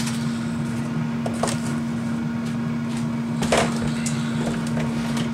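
Air fryer running with a steady hum. A short clatter comes about three and a half seconds in, as a kitchen trash bin is opened, with a few lighter knocks before it.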